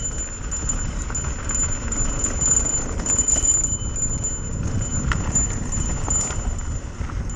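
Mountain bike descending a dirt trail at speed: steady wind buffeting on the microphone and tyre rumble, with scattered clicks and rattles from the bike over the rough ground.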